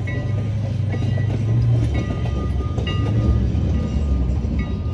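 Canadian National 89 steam train rolling past with its passenger coaches: a loud, steady low rumble of wheels on rail, with brief high-pitched squeals now and then.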